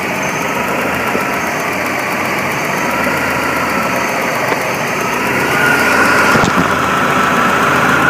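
BMW E46 318's M43 1.9-litre four-cylinder engine idling roughly, with a thin whine that drifts slowly up and down in pitch.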